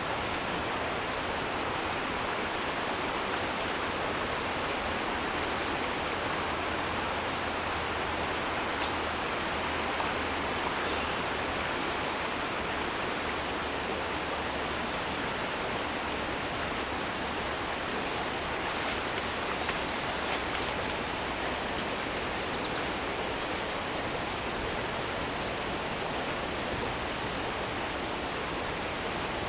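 Stream water rushing steadily, an even, unbroken hiss.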